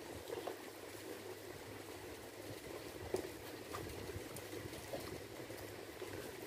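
Fingers mixing and mashing rice with chicken and potato curry gravy on a steel plate: soft wet squishing with a few light clicks, over a steady low hiss.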